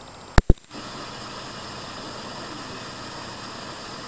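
Two sharp clicks in quick succession about half a second in, then a steady mechanical hum with hiss.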